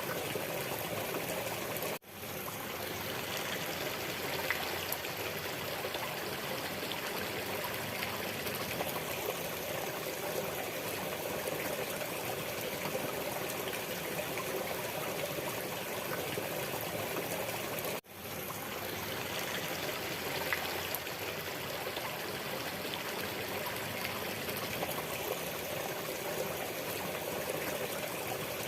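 Waterfall: a steady rush of falling water. It cuts out for an instant twice, about two seconds in and again sixteen seconds later, each time swelling back in over a second.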